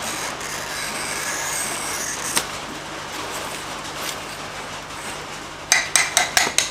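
Glass cutter scoring a strip of glass, a scratchy hiss with a faint squeal for about two seconds that ends in a click. Near the end, about five sharp taps on the glass in quick succession, as when the score is tapped to run the break.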